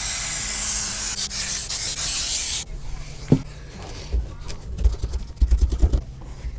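Aerosol spray adhesive hissing from a can onto the back of a carpet piece in one long spray that cuts off suddenly about two and a half seconds in. Then come quieter rustling and soft bumps as the carpet is handled and pressed down.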